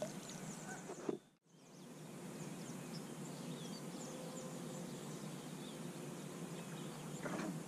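Quiet outdoor ambience with scattered faint bird chirps and calls. The sound cuts out for a moment a little over a second in.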